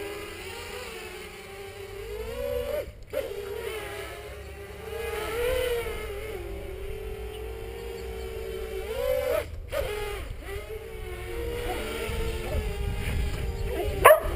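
Peon230 quadcopter's brushless motors and propellers whining, the pitch rising and falling as the throttle changes during acro flying. The sound cuts out briefly twice. At the very end a dog begins barking.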